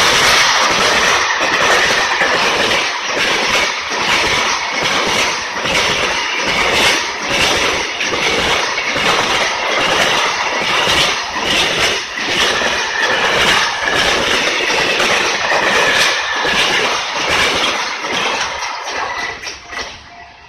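Freight train, hauled by an EF210 electric locomotive, rolling past at speed: a steady rumble of wagons with a rapid clickety-clack of wheels over rail joints, dying away near the end as the last car passes.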